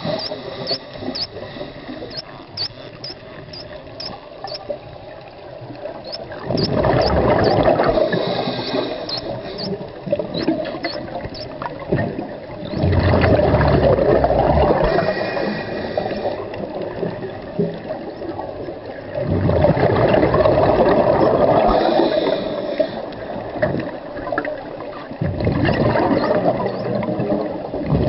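Scuba diver breathing through a regulator underwater: a rushing, bubbling exhalation about every six seconds, four times, with a quieter hiss between breaths.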